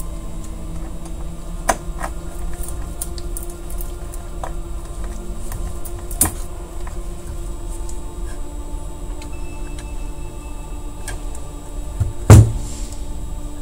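Scattered light clicks of Xbox console parts being handled and fitted together during reassembly, with one loud knock about twelve seconds in.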